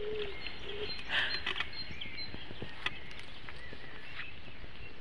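Quiet outdoor ambience: a steady background hiss with scattered short bird chirps, a brief rustle about a second in and a single click near the end.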